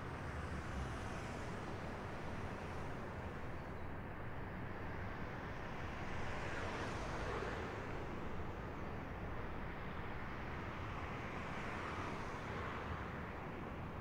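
Steady city background at night: distant traffic hum, swelling and fading as a vehicle or two passes.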